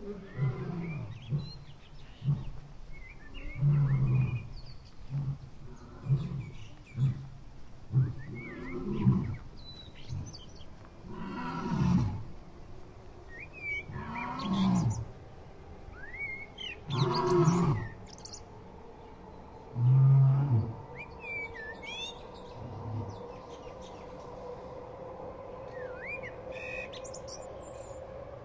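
Tiger growling and roaring again and again, a second or two apart, the calls dying away after about 23 s. Birds chirp in the second half over a steady hum.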